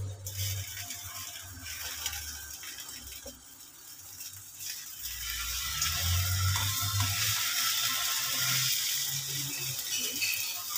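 A sardine-and-egg omelette sizzling in hot oil in a nonstick pan, with a silicone spatula scraping and folding it against the pan. The sizzle grows louder about halfway through.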